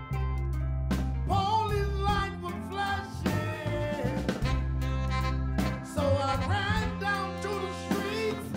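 Male soul singer singing full-voiced into a microphone over a live soul band, with sustained bass notes under the vocal line.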